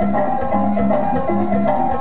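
Dance music played loud over a party sound system, with a repeating bass line, percussion and melody instruments.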